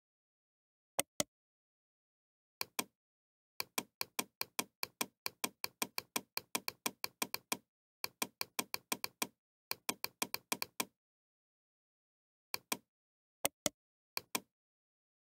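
Computer mouse clicks, mostly in quick press-and-release pairs. A couple of single pairs come first, then long fast runs of clicking for several seconds, then a few pairs again near the end.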